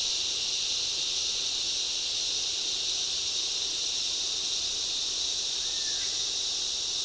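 Dense, steady chorus of rainforest insects: a continuous high-pitched drone with no pauses.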